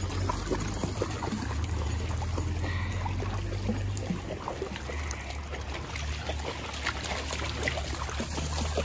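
Shallow creek water trickling over stones as several dogs wade through it, with scattered small splashes and a steady low rumble underneath.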